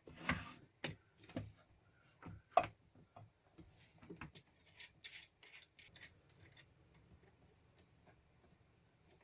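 Irregular light clicks and knocks of parts and tools being handled, with a sharper knock about two and a half seconds in, growing sparser and fainter in the second half.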